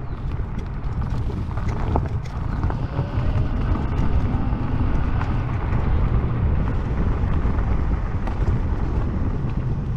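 Riding noise of a YUME X7 electric scooter on a paved path: a steady low rumble of wind on the microphone and tyres on asphalt, with light rattling clicks and a faint rising whine about three seconds in.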